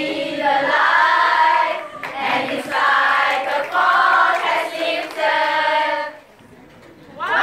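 A group of women's voices chanting in unison in a choral speaking piece, in sing-song phrases. The voices fall silent briefly near the end, then come back in together on a rising pitch.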